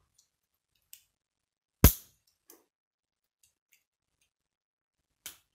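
Plastic K'nex connectors and rods clicking as they are snapped together by hand: one sharp snap about two seconds in, with a few fainter clicks around it.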